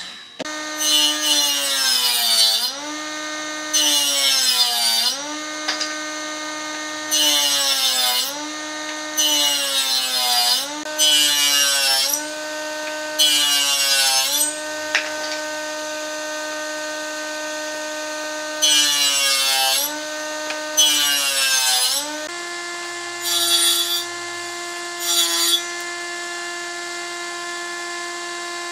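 Electric woodworking power tool running steadily and cutting wood in about ten short passes. Its motor pitch sags under load with each pass, and each pass adds a hissing cutting noise. In the last few seconds the motor runs freely at a slightly higher pitch, with two brief cuts.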